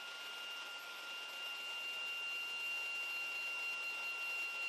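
Small handheld electric cleaning tool running steadily with a high whine over a hiss, clearing dust off a circuit board.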